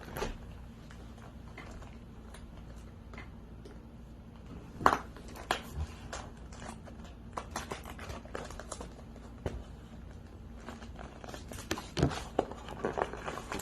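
Quiet handling of a cardboard trading-card hobby box and its packs: scattered soft taps and rustles, with one louder knock about five seconds in.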